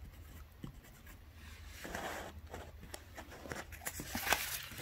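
Paper handling: faint pen-and-paper sounds at first, then from about two seconds in a paper worksheet is rubbed and slid by hand across a desk, the rustling growing louder toward the end.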